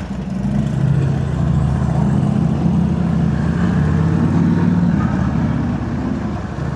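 Harley-Davidson Sportster V-twin running steadily through a new Cobra El Diablo 2-into-1 exhaust.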